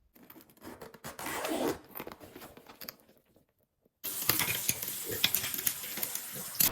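Close handling noises: rustling and scraping crackles, a brief pause, then about four seconds in a denser, steadier crackling hiss.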